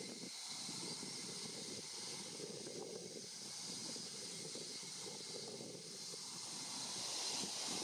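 Wind buffeting the microphone in uneven gusts, over a steady high-pitched hiss.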